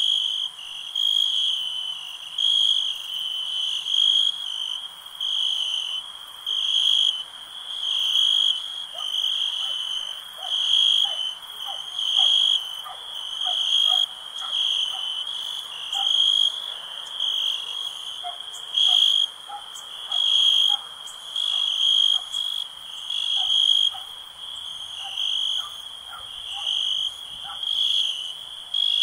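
Night ambience of crickets chirping in a steady pulsing rhythm, about one burst of chirps every second and a half, with frogs giving many short calls from about eight seconds in.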